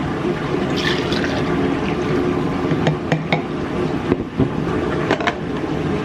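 Coffee poured from a ceramic mug into a clear plastic tumbler, followed by a few sharp plastic clicks as the tumbler is handled and its lid is fitted.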